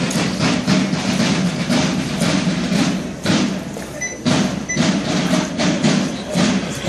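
Parade drums beating a steady, fast march rhythm, several strikes a second, easing briefly a little after three seconds in.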